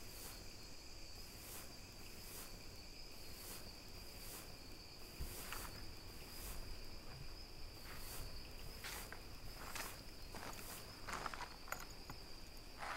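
Insects chirping steadily in grassland, a high drone with soft pulses about once a second. From about five seconds in, footsteps swishing through tall grass come closer.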